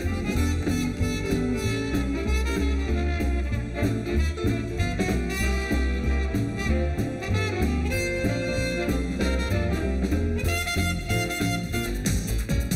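Upbeat instrumental background music with a steady beat and bass line.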